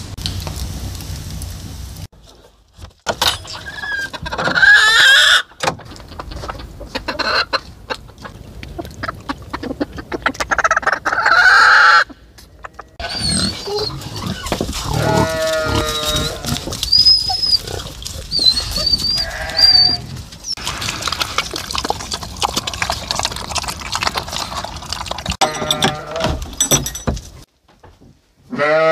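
Goats and sheep bleating, with short high-pitched chirps among the calls.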